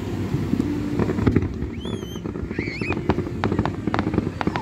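Fireworks going off: a quick run of bangs and crackling cracks starting about a second in, with a short wavering whistle near the middle.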